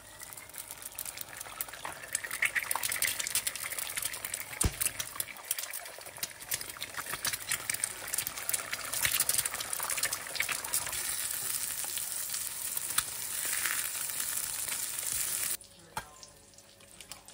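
Eggs frying in hot oil in a non-stick frying pan: a steady sizzle thick with small crackling pops, which stops suddenly near the end.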